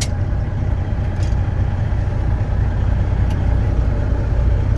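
Heavy truck diesel engine idling with a steady low rumble, with a few faint light clicks over it.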